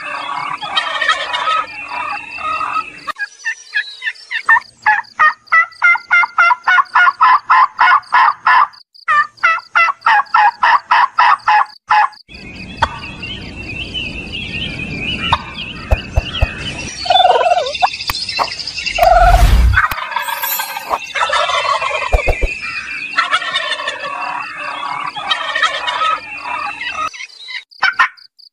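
Domestic turkeys gobbling, several calling over one another, with a long fast run of rattling gobbles from about four to twelve seconds in. A low rumble takes over in the middle, peaking in one loud brief burst about nineteen seconds in, then the gobbling returns before the end.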